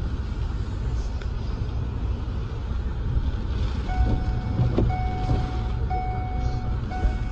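Low steady rumble of a car driving, heard from inside the cabin. About four seconds in, an electronic beep starts repeating about once a second.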